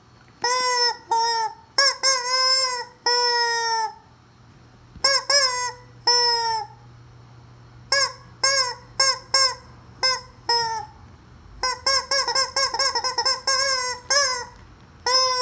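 Squeaky rubber chicken toy squeezed over and over, giving nasal squawks, some short and some drawn out, in irregular groups, with a quick run of short squawks about two-thirds of the way through.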